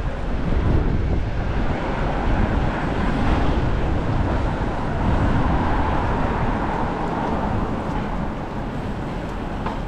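Steady wind rush over the microphone of a camera on a moving bicycle, mixed with tyre and road noise from a wet city street and passing traffic.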